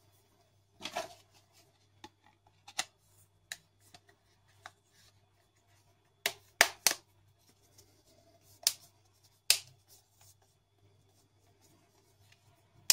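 Plastic back cover of a Samsung Galaxy J3 (2016) smartphone being pressed onto the phone and snapped into place around its edges: a series of sharp clicks, with a quick run of three about six seconds in.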